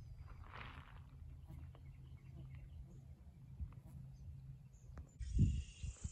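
Steady low rumble of wind on the microphone by open water, with a few faint bird chirps. About five seconds in the sound changes, and a few heavy low thumps follow.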